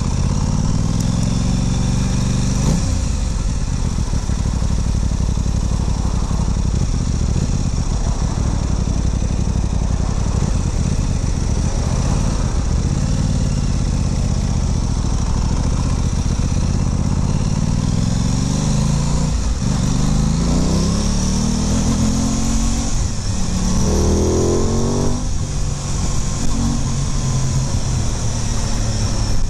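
Aprilia Tuono 660's parallel-twin engine pulling away and accelerating through the gears, the revs rising and dropping back with each upshift. There is a run of quick upshifts about two-thirds of the way through.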